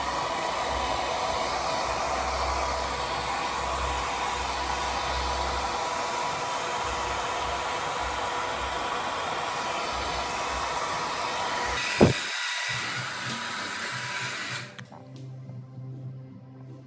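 Handheld hair dryer blowing steadily on the glued lace of a wig along the hairline, drying the glue to make it tacky. About twelve seconds in there is a sharp click, and a few seconds later the rush stops, leaving only a low hum.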